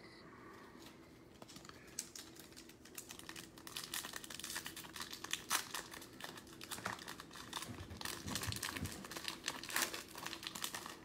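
A trading card pack's foil wrapper being crinkled and torn open by hand: a quick run of crackles that gets busier about four seconds in.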